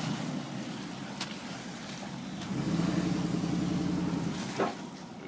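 Dodge Dakota pickup's engine pulling the truck through mud ruts at low speed, the throttle opening up about halfway through and held for a couple of seconds. A brief sharp sound with a falling pitch cuts in near the end.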